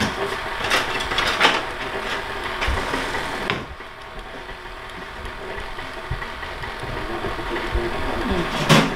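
KitchenAid stand mixer running on low, its motor humming steadily as the dough hook works water into bread flour. A few sharp knocks sound in the first four seconds, and the mixer gets quieter after about three and a half seconds.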